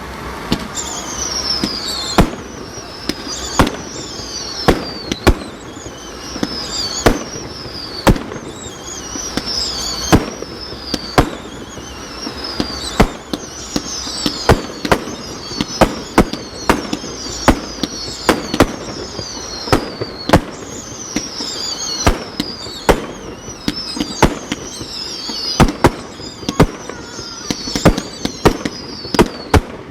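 A fireworks display: a continuous string of sharp bangs from bursting shells, irregularly spaced, with high whistles that fall in pitch sounding between them.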